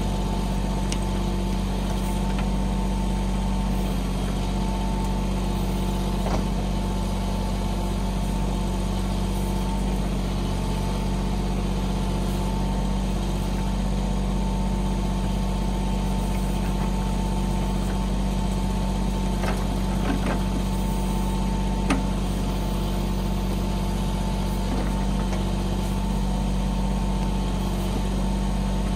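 Mahindra 1626 compact tractor's diesel engine running at a steady speed, with a few brief knocks.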